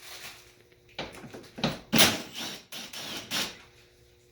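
A run of knocks, clunks and scrapes of car parts being handled during disassembly, starting about a second in; the loudest clunk comes about two seconds in and another near the three-and-a-half-second mark.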